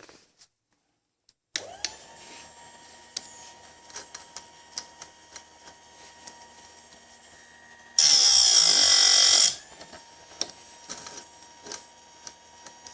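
Bench-mounted chainsaw chain sharpener's grinding-wheel motor switching on about a second and a half in and running with a steady whine, with scattered clicks. About eight seconds in, the wheel grinds a chain tooth for about a second and a half, a much louder harsh grinding.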